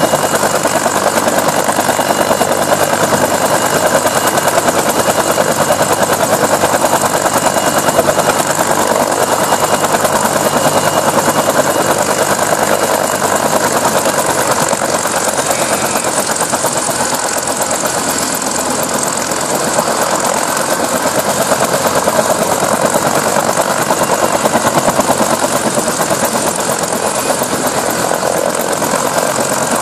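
Bell UH-1 Huey helicopter running on the ground after start-up: its turbine engine and two-blade main rotor turning, with a fast, even beat from the blades over the engine's steady noise.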